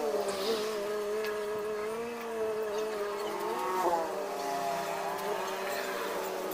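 An engine running steadily, its pitch briefly rising and falling a little before the middle.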